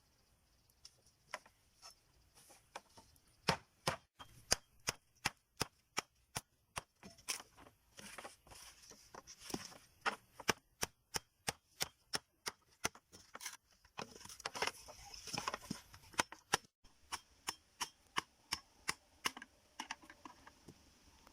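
Repeated sharp knocks of a hand tool striking bamboo, about two a second, with a short break about two-thirds of the way through.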